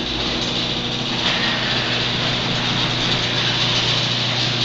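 A motor running steadily, a continuous low hum with a noisy whirr over it.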